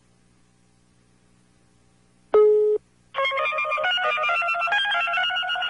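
Telephone call being placed. After a quiet stretch, one steady ringback beep sounds about two seconds in and is cut short. Then a bright electronic melody of quick stepping beeping notes runs for about three seconds.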